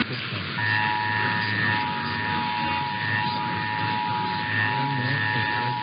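Emergency Alert System two-tone attention signal: a steady dual-tone alarm that starts about half a second in and holds unbroken. It plays over a hissy, noisy received broadcast and announces the start of an EAS test.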